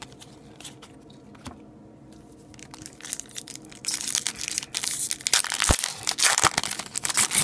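Foil hockey-card pack wrapper being torn open and crinkled by hand. The crackling starts about three seconds in and grows louder.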